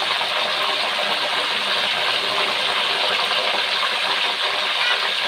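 Banana slices deep-frying in a wok of hot oil, with a steady, dense sizzle. Water from the spooned-in garlic-and-salt seasoning is still boiling off. Frying goes on until this sizzling stops, the sign that the chips are dry and crisp.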